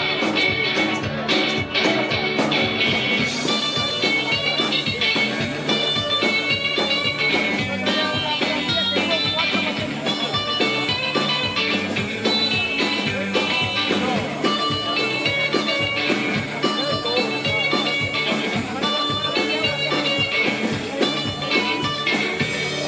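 Live rock and roll band playing: electric guitars, bass and drums with a fast, steady beat, the cymbals getting brighter about three seconds in.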